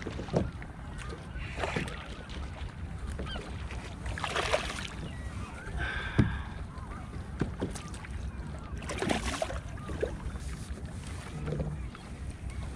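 Sea water sloshing and splashing around a kayak, with a few loud surges, while seabirds call now and then.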